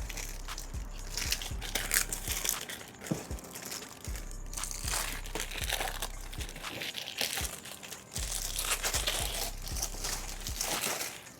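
Plastic wrapping being torn and crumpled off a brand-new motorcycle tire, in irregular crinkling bursts.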